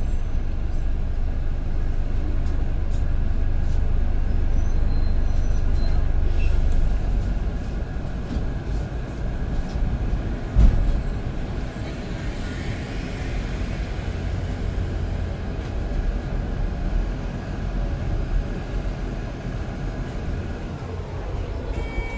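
Double-decker bus running, heard from on board: a steady low engine and road rumble, with a single sharp knock about halfway through.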